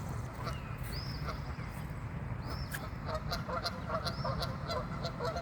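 Waterfowl at a pond calling: scattered calls at first, then from about three seconds in a dense run of short, rapid calls, with a few higher chirps over a steady low rumble.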